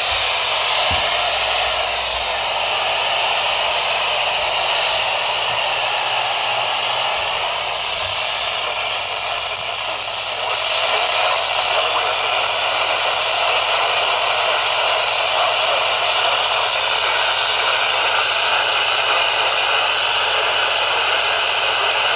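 Radio receiver hissing with static from a weak signal, faint wavering tones buried under the hiss; the hiss grows a little louder about ten seconds in.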